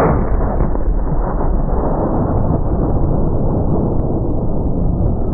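1-bore punt gun blast: a sudden deep boom right at the start that carries on as a heavy, steady rumble without easing.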